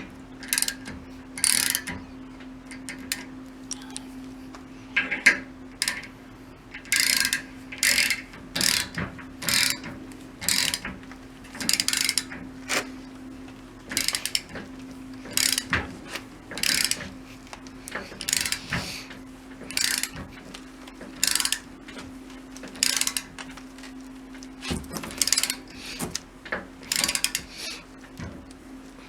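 A hand wrench with a ratchet worked back and forth in repeated strokes, roughly one a second, over a steady hum.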